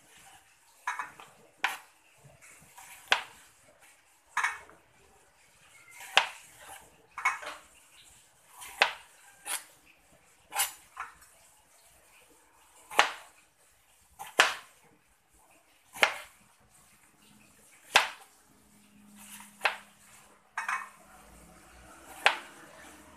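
Kitchen knife slicing through eggplant and knocking on a plastic cutting board, one sharp knock at each cut, roughly every one to two seconds at an uneven pace.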